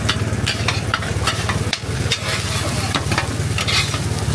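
Metal spatulas chopping and scraping through fried rice on a flat steel griddle, sharp clanks and scrapes several times a second over a steady low hum.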